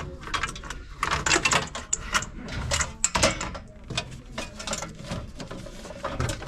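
Rapid, irregular mechanical clicking and clattering of hand work on metal parts, loudest from about one to three and a half seconds in.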